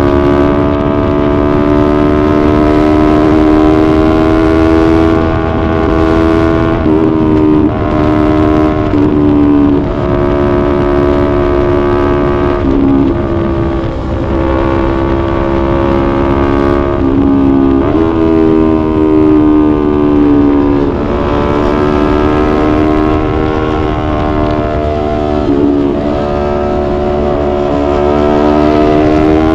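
Yamaha YZF-R3 sport bike's parallel-twin engine under way. It revs up through the gears, its note climbing steadily and then dropping at each shift, again and again.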